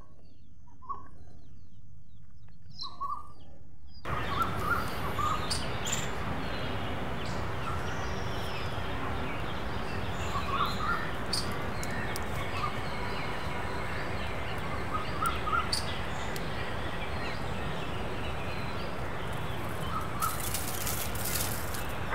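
Outdoor ambience: a steady hiss of background noise with short bird chirps scattered through it, starting about four seconds in.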